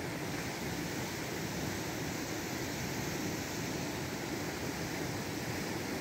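Steady rush of a swollen, fast-flowing muddy stream: an even noise without breaks.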